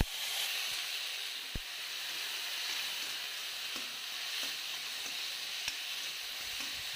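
Chopped sour leafy greens, onion and potato sizzling in hot oil in a kadai as a steel spatula stirs them, with a steady hiss. A few sharp clicks of the spatula against the pan, the loudest right at the start.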